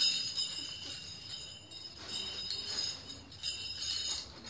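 Metal nunchaku spun and passed from hand to hand, its steel chain clinking and jingling and its metal sticks ringing, in several louder bursts.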